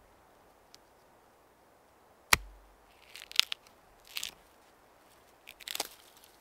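A single sharp chop of a hatchet blade striking wood about two seconds in, followed by three short bursts of crunching and crackling.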